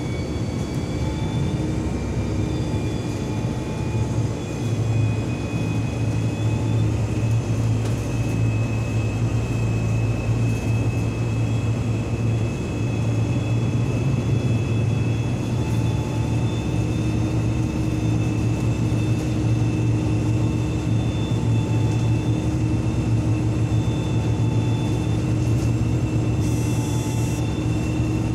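Inside a city bus driving at speed: a steady engine and road drone with a strong low hum, and a thin high whine that rises slightly in pitch over the first ten seconds and then holds.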